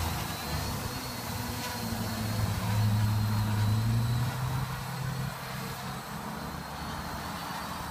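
SK450 quadcopter's brushless motors and propellers humming in flight. The pitch rises a little, then drops about five seconds in, and the hum grows fainter as the drone moves away.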